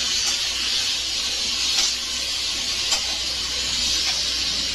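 Tomatoes, onions and green chillies sizzling in hot oil in a wok, a steady hiss, with a few light clicks and scrapes of a metal slotted spatula against the pan as the mixture is stirred.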